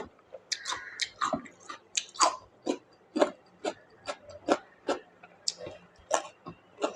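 Close-miked chewing of a meal of pork curry and rice: a steady run of wet mouth smacks and bites, about two to three a second.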